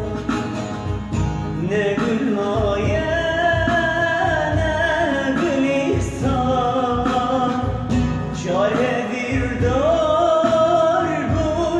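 A man singing a song in long held notes that slide up into pitch, over instrumental backing with a steady beat.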